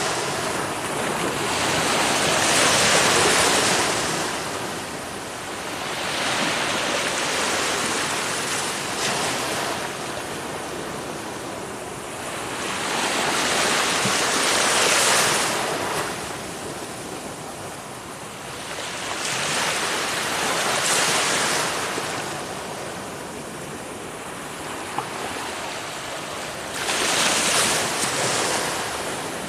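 Ocean waves breaking and washing up, each surge swelling and falling away, roughly every six seconds.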